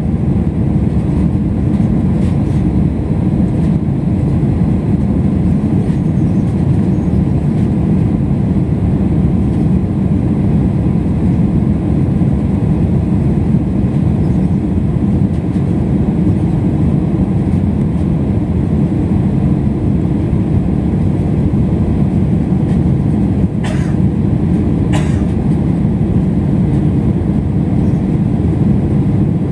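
Jet airliner cabin noise during the climb after takeoff, heard from a window seat by the wing: steady, deep engine and airflow noise. Two light clicks about a second apart near the end.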